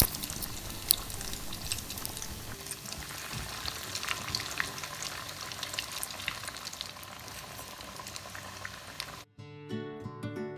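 Hot oil bubbling and crackling around a breadcrumb-coated cutlet deep-frying in a wok, with a click or two of the steel slotted spoon. About nine seconds in the frying sound cuts off and acoustic guitar music begins.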